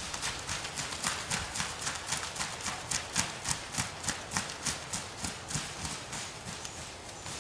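Quick footsteps crunching through dry leaf litter, about four to five steps a second.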